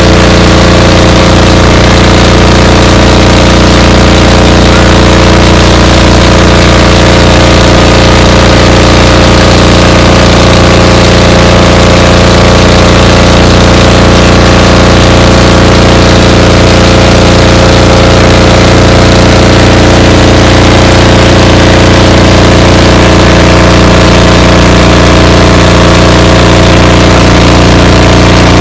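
An engine running loudly and steadily at one constant speed, with an unchanging hum.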